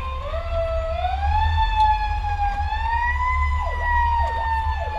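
Fire truck siren winding up, its pitch climbing over the first three seconds and then holding steady, with a second, faster siren tone sweeping down and up repeatedly from about three and a half seconds in. Under it runs the low rumble of the truck's engine, heard from inside the cab.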